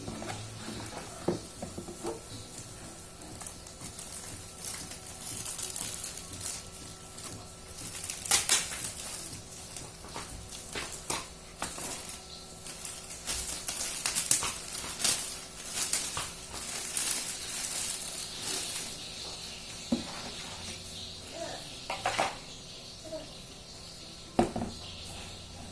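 Handling noises from unboxing a laptop: irregular clicks, taps and light clatter with rustling of packaging, a few louder knocks scattered through.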